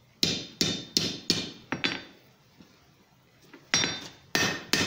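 Blacksmith's hand hammer striking a red-hot iron bar on an anvil to close up a scroll. There are five blows at about three a second, a pause of about two seconds, then three more blows near the end, each with a short metallic ring.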